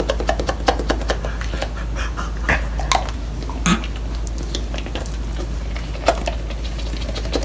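A dog making short vocal sounds over many small clicks, with one falling cry about halfway through and a steady low hum underneath.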